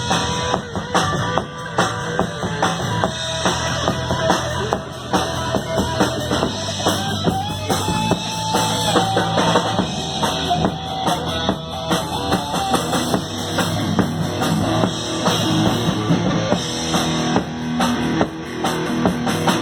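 Rock band playing live in an instrumental break, with drum kit, bass and guitar.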